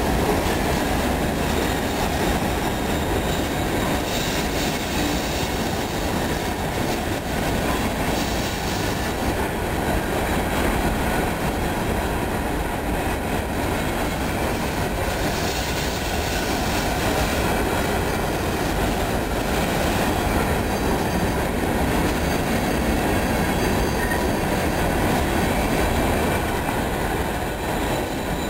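CSX freight train's hopper cars rolling past close by: a steady rumble of steel wheels on rail, with clicking over the rail joints and a faint high wheel squeal.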